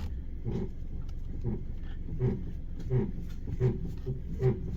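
Front end of a 2013 Subaru Crosstrek creaking as the steering wheel is turned: a rapid, even series of creaks, about two to three a second, which the owner suspects comes from an upper strut bearing plate.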